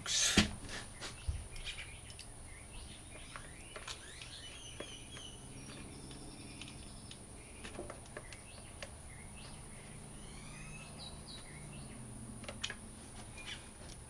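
A sharp rustling knock at the start, then scattered small clicks as hands handle a screw and wire terminal at the generator. Birds chirp faintly in the background, with a short run of chirps about four seconds in and again near the end.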